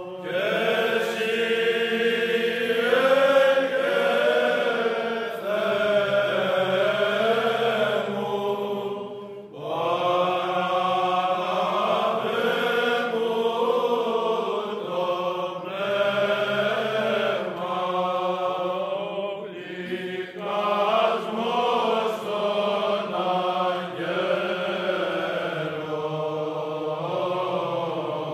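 Byzantine chant sung by a group of Orthodox monks and clergy: men's voices carrying a flowing melody in unison over a steady low held note. There is a short break between phrases about nine seconds in.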